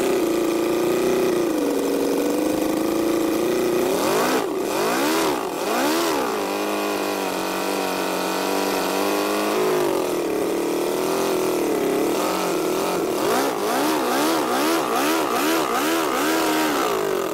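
Miniature inline four-cylinder model engine running while its throttle is worked by hand. It holds a steady idle, is revved up and down in quick swells about four seconds in, settles to a lower idle, then is blipped over and over in quick succession through the last few seconds.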